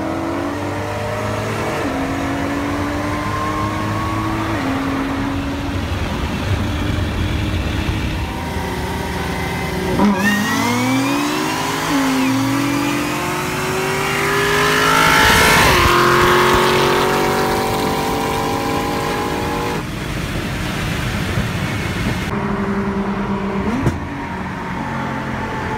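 High-horsepower cars racing side by side from a roll at full throttle. The engine note climbs and drops back at each gear change, and the loudest hard pull comes about halfway through.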